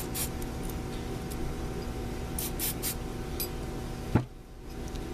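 Small clicks and scrapes of steel revolver parts being handled during reassembly of a Colt 1851 Navy, likely the mainspring being fitted, with a dull knock about four seconds in. A steady low hum runs underneath.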